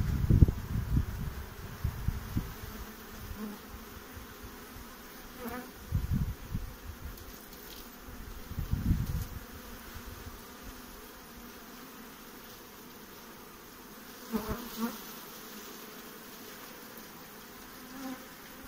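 A honeybee colony buzzing steadily over an open hive box. Several dull low bumps come in the first couple of seconds and twice more later, with a few sharp clicks, as the hive is handled.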